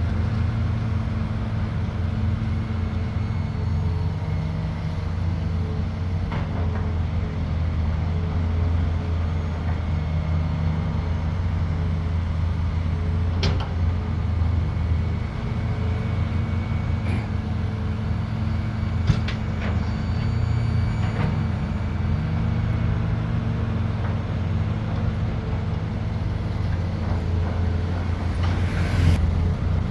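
Heavy construction machinery's diesel engine running steadily with a low drone, with a few sharp metal knocks in the middle and a brief hiss near the end.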